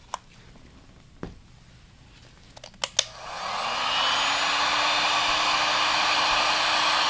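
A few sharp clicks, then about three seconds in a heat gun is switched on. Its motor spins up with a rising hum and settles into a steady rush of blowing air, heating a transmission bearing's inner ring.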